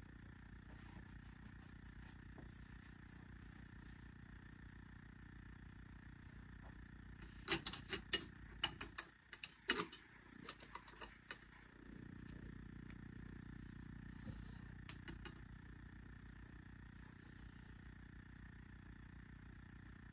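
A burst of knocks, clicks and rubbing bumps lasting about four seconds in the middle, the sound of the camera being touched or brushed against as an arm passes close in front of the lens. A steady low hum sits under the rest.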